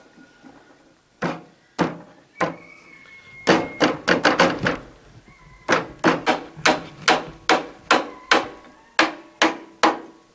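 Repeated hammer blows on the metal steering-wheel hub of a UTB 650 tractor, each with a short metallic ring. The blows start about a second in, come in a quick flurry around the middle, then fall into a steady two or three a second.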